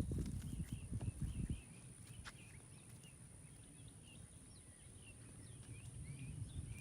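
Small birds chirping over and over in short calls, against a steady high hiss. Low rumbling thuds in the first second and a half, then a quieter stretch.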